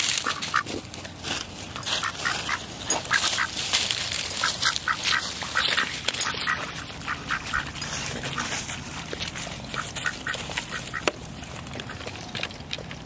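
Pet duck quacking in many short repeated calls, with dry leaves crunching underfoot.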